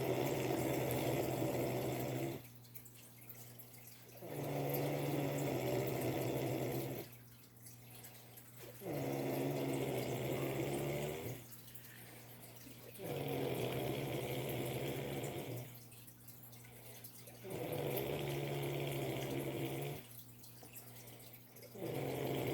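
A sleeping cat snoring loudly and evenly, with six rattling snores about every four and a half seconds, each lasting around two and a half seconds with a low steady buzz, and quieter breaths between them.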